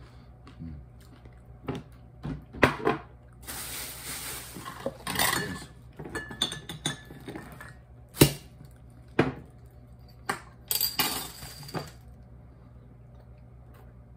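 Glass and tableware clinking and knocking as things are handled on a table; about eight seconds in, a knife pries the cap off a glass beer bottle with one sharp click.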